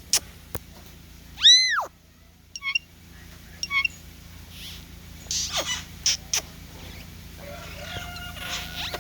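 Green jays calling: a run of sharp downward chips, one loud arching call with a rising-then-falling pitch about a second and a half in, a few short pips, and near the end a steadier held call.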